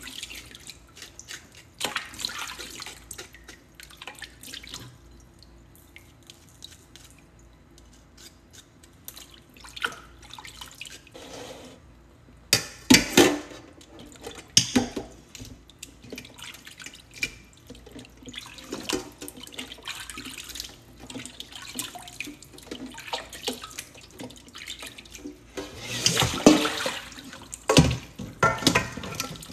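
Raw chicken wings being washed by hand in a stainless steel bowl of water in a sink: irregular splashing and sloshing. There are a few louder moments about halfway through and again near the end.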